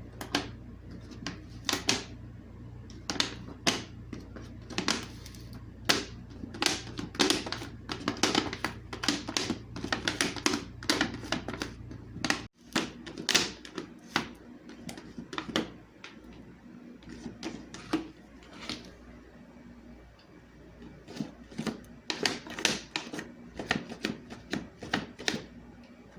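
A cat pawing at and knocking things about, making irregular clacks and knocks, often several in quick succession. A low steady hum under the first half stops abruptly about halfway.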